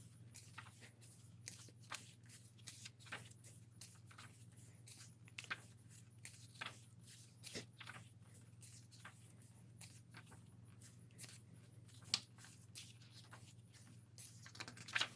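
Faint paper rustles and soft taps as the glossy pages of a photo book are turned and handled, scattered irregularly over a steady low hum.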